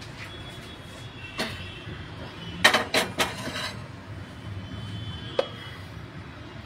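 Stainless steel pan being handled, giving a few sharp metal clinks and clanks. The loudest cluster comes about two and a half to three and a half seconds in, with one more knock near the end.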